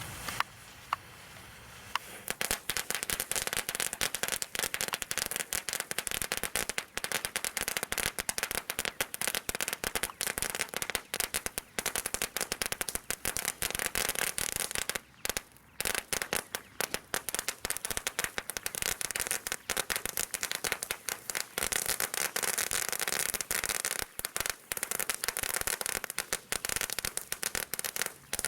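Celebration Cracker Large firework going off: a dense, continuous stream of sharp crackling pops that starts about two seconds in, with a brief lull near the middle.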